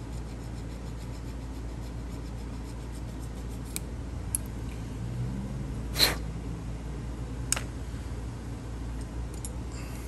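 Hand file scraping a brass barrel key blank, with a few sharp clicks; the loudest click comes about six seconds in. A steady low hum runs underneath.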